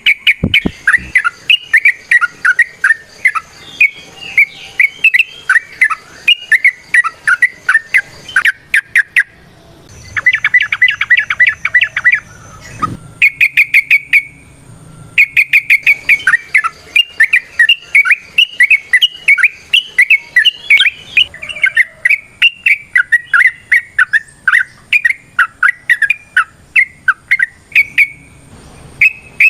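Yellow-vented bulbul (trucukan) singing in long, rapid runs of bubbly whistled notes, with a few short breaks and one denser, chattering run. This is the fast, varied 'ropel' song that keepers prize in a bird in full voice (gacor).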